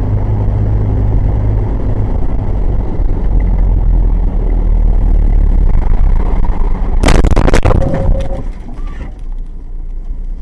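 Steady loud rumble of a car's engine and tyres, heard from inside the car. About seven seconds in comes a burst of sharp bangs and crunching lasting under a second, the sound of a collision, after which the rumble is quieter.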